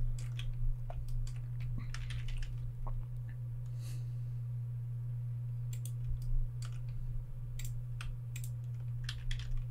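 Computer keyboard keys and mouse buttons clicking in irregular clusters, over a steady low electrical hum.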